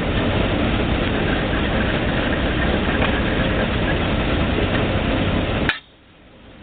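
Failling 1250 drilling rig running, a loud steady engine-and-machinery noise with a low hum. Near the end it cuts off abruptly with a click.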